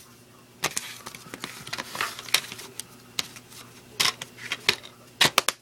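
A plastic DVD case and its paper inserts being handled: scattered light clicks and rustles, with a quick run of clicks near the end.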